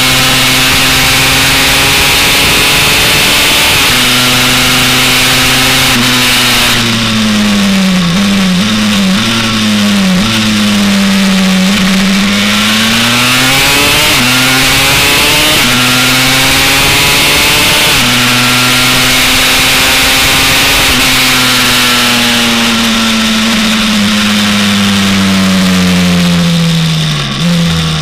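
Two-stroke single-cylinder engine of a Honda CR race bike with a 327cc TRX 250R motor, at high revs, with wind rush. About seven seconds in its note falls in a series of quick steps as it downshifts for a corner. It then climbs back up and holds high along the straight, and eases off near the end.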